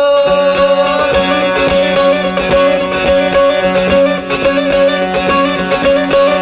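Instrumental interlude of a Turkish folk song (türkü): a plucked string instrument picks out a melody over steady held drone notes, between sung verses.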